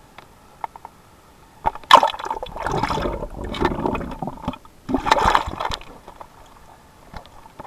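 River water splashing and gurgling around a waterproof action camera as it is dunked under the surface and lifted back out: a sharp splash about two seconds in, a couple of seconds of churning, then a second burst near five seconds. Faint ticks of handling come before and after.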